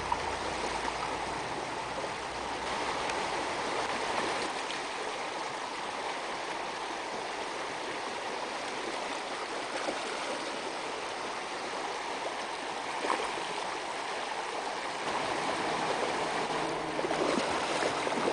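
Shallow river running over gravel and stones: a steady rush of water.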